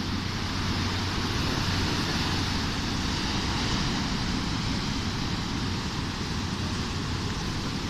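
Ocean surf breaking on a sandy beach: a steady, unbroken rushing noise of waves and foam.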